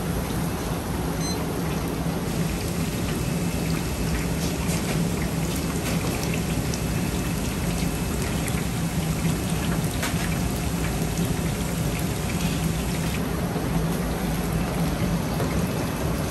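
Steady rushing kitchen noise with a constant low hum underneath and a few light clicks and knocks scattered through it.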